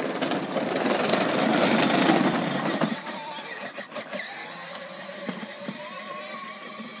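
Power Wheels ride-on toy dune buggy driving off, its electric drive motors running and its plastic wheels rumbling. The sound is loudest for the first three seconds, then grows quieter as it moves away.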